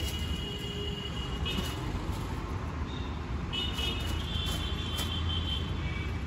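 Outdoor city background: a steady low rumble of distant traffic, with thin high-pitched tones coming and going twice.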